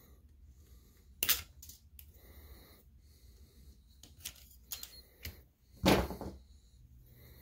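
Screwdriver pressing a drilled-out rivet out of an aluminium heat sink on a lamp ballast circuit board: a few sharp metallic clicks and knocks, one about a second in and the loudest, heavier knock near six seconds.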